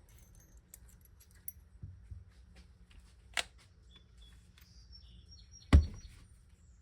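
A few light clicks, a sharp knock about halfway through, and a louder, heavier knock near the end: hard objects being handled and set down, with faint bird chirps in the background.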